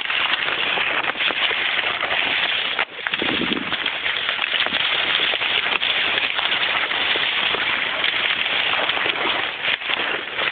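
Leaves and twigs rustling and crackling against the camera microphone as it is pushed through dense undergrowth, a steady close crackle full of small snaps.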